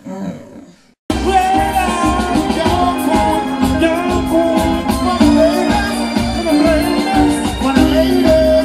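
Live reggae band with a singer: a steady beat on drums and bass under guitar, with a lead vocal over it. The music cuts in abruptly about a second in, after a short fade to silence.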